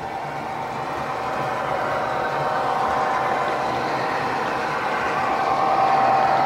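Diesel engine sound of an Irish Rail 141 class locomotive, played by the model's DCC sound decoder through small sugar-cube speakers. It runs steadily and grows louder as the model approaches, loudest about six seconds in.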